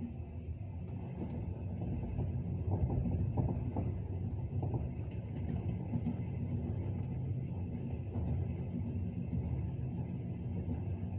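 Passenger train in motion: a steady low rumble with the clatter of wheels over rail joints, the knocks most marked a few seconds in.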